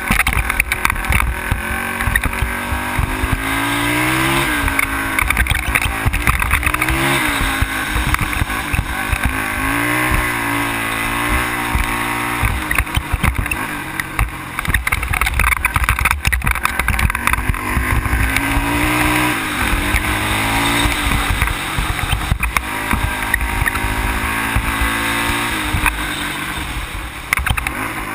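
ATV engine running under way, its pitch rising and falling several times as the throttle is worked, with a steady noisy rush and frequent knocks and rattles as the machine runs over the rough gravel track.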